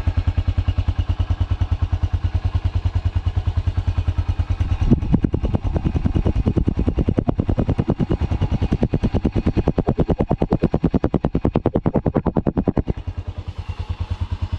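Small single-cylinder four-stroke engine of a Honda Pop motorcycle idling cold just after start-up, with a steady fast putter. From about five seconds in it runs rougher and stronger for several seconds, then settles back to idle near the end. The cold engine is smoking heavily, which the owner finds happens only in the morning when it is cold.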